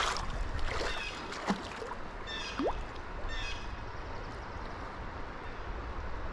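Stream water rushing steadily, with a low rumble underneath and a few short high-pitched buzzes.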